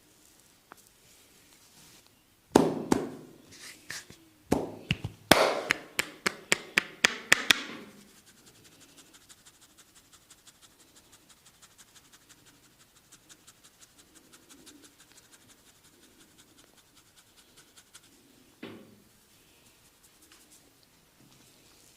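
Percussive hand strikes of an Indian barber's head massage: a burst of loud, sharp slaps between about two and eight seconds in, then a long run of faint, quick, even tapping, and one more slap near the end.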